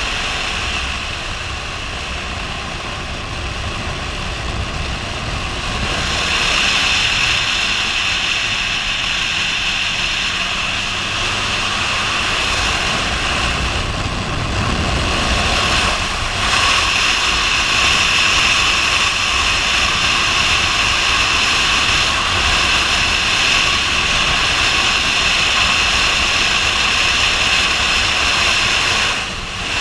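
Wind rushing over a helmet-mounted camera at cruising speed, with the Yamaha MT-09's three-cylinder engine running steadily beneath it. It grows louder about six seconds in and again around sixteen seconds, and dips briefly near the end.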